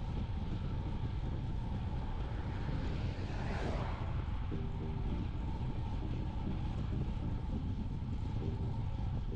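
Wind buffeting the microphone during a road ride, a steady low rumble. A passing vehicle swells up and fades away about three and a half seconds in.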